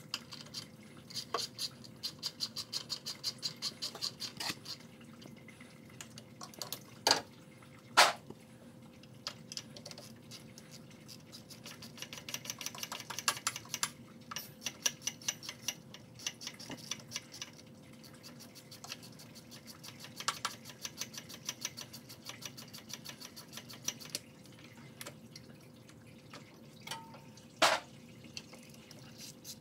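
Hand socket ratchet clicking in fast runs of a few seconds each as bolts are turned, with a few sharper metal knocks of tools against the engine, the loudest about eight seconds in.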